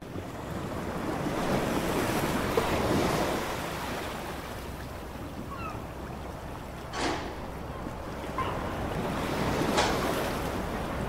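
Sea waves washing in and out, the surf noise swelling and easing, with two brief sharper rushes about seven and ten seconds in.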